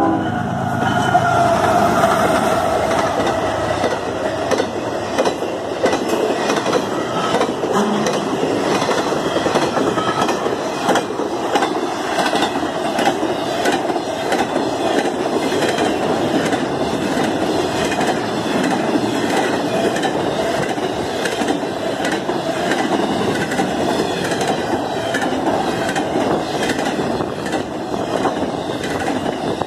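CSX intermodal freight train passing close by: the locomotives go past at first, then a long string of container and trailer cars follows, with a steady rush and repeated clacking of wheels over the rails.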